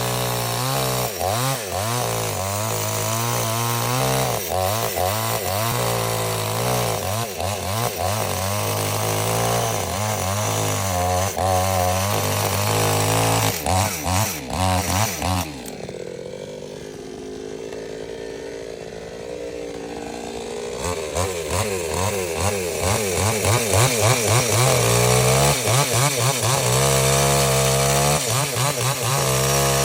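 Chainsaw running at high revs and cutting wood, its engine note wavering under load. About halfway through it drops back to a lower idle for about five seconds, then revs up and cuts again.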